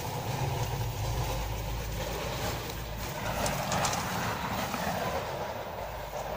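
Low rumbling noise with rustling as raspberry leaves brush past the phone's microphone, with a few brief crackles about three and a half seconds in.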